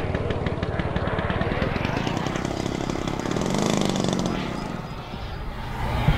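Radio-controlled scale model jet flying overhead, its engine noise swelling to a peak past the middle and then fading. A short sharp click comes near the end.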